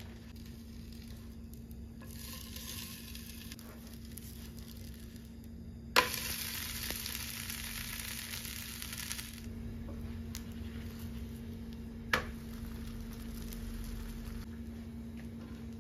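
Chapati frying in a pan: a soft sizzle that grows louder after a sharp knock about six seconds in, with another knock about twelve seconds in.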